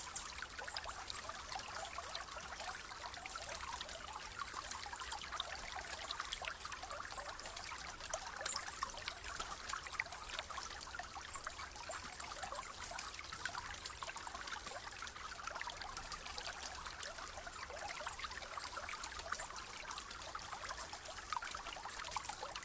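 A small rainforest stream trickling over river stones: a steady, even wash of running water full of tiny splashes.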